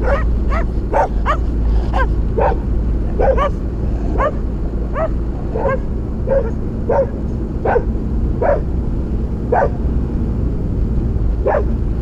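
A dog barking repeatedly, more than a dozen short barks about half a second to a second apart, with a longer pause before a last bark near the end. Underneath runs the steady low drone of the Korando's 2.9 turbodiesel engine as it drives slowly.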